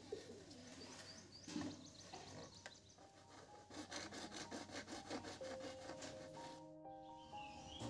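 A bare hacksaw blade sawing across a thin-walled PVC pipe by hand, faint scraping that settles into quick, even strokes about five a second from about halfway through. Soft background music comes in near the end.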